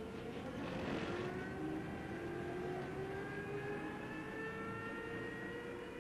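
A vehicle's motor accelerating, its pitch rising slowly and steadily as it gathers speed.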